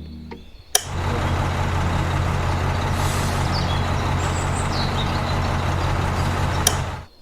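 A small motor running steadily with a low hum and a hiss. It starts with a click about a second in and stops abruptly near the end.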